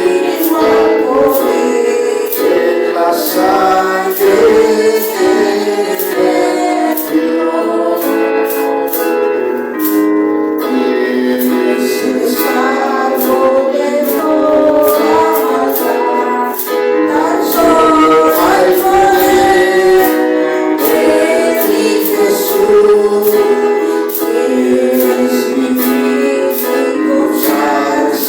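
Church congregation singing a hymn together, women's and men's voices, over a regular beat of sharp percussive strikes.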